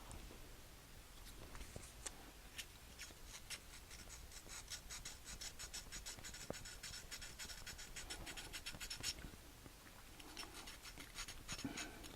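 Faint, quick scratching and rubbing of small hand work at a bench, densest from about four to nine seconds in.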